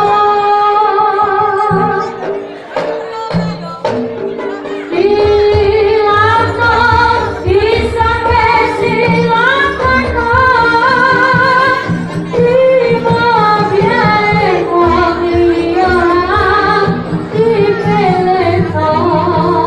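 Live Javanese music accompanying a barongan performance, with a woman singing a wavering, ornamented melody over steady pitched instrument notes and a low rhythmic beat. The low beat drops out about two seconds in and comes back about five seconds in.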